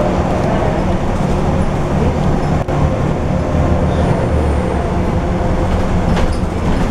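Volvo B12M articulated bus's diesel engine running, heard from inside the passenger cabin as a steady low drone mixed with road and body noise, with a brief drop about two and a half seconds in.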